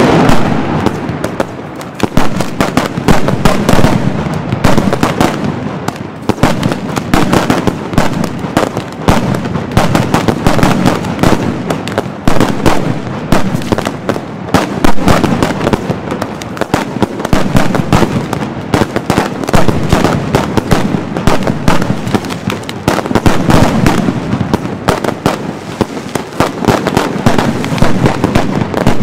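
Mascletà: an unbroken, rapid-fire barrage of firecrackers and salute shells going off too fast to count, rising and falling in waves of louder bangs.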